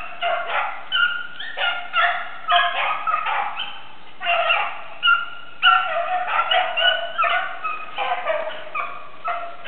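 A pack of beagles baying on a cottontail rabbit's trail, several dogs' calls overlapping in quick, repeated bawls and yelps: the hounds giving tongue as they run the scent.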